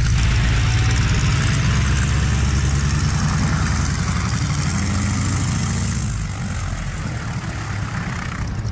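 Radial engine of a 1940 Stearman biplane running at idle while the plane taxis, a steady low pulsing rumble that fades over the last few seconds as the plane moves off.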